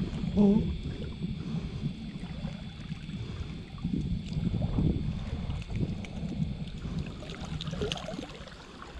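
Wind noise on the microphone over shallow seawater lapping and sloshing around wading legs.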